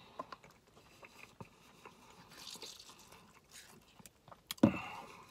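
Quiet eating sounds: small clicks of a metal spoon in a paper soup cup and soft chewing, with one louder short thump about four and a half seconds in.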